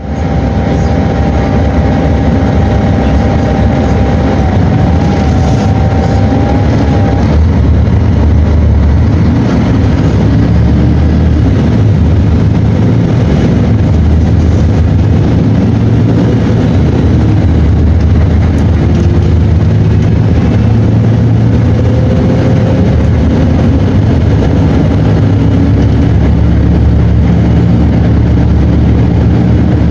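Mercedes-Benz OM 457 LA turbocharged, intercooled inline-six diesel engine of an O-500 bus running steadily, its pitch shifting up and down with engine speed. A steady high whine sounds over it for the first seven seconds, then stops suddenly.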